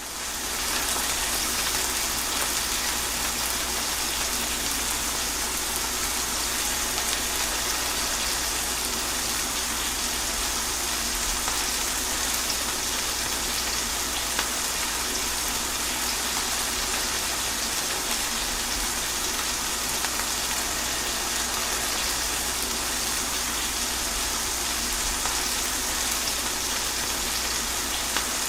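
Steady rain falling, an even hiss with fine drops, fading in over the first second.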